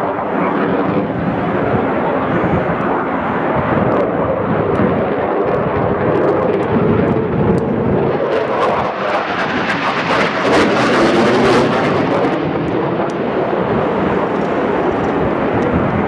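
Eurofighter Typhoon's twin EJ200 turbofans as the jet passes overhead: a continuous jet noise that swells in the middle and is loudest about ten to twelve seconds in, with a crackle in the upper range at its peak.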